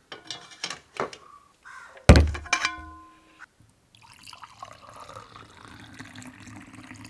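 A few light metal clinks, then a loud clank about two seconds in that rings on briefly, as a metal pan or vessel is handled. From about four seconds the warm spiced coconut milk is poured out in a steady stream.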